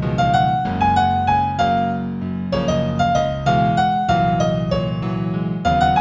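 Gentle new-age piano music in F major: a slow melody of single struck notes, about one to two a second, over a repeating lower accompaniment.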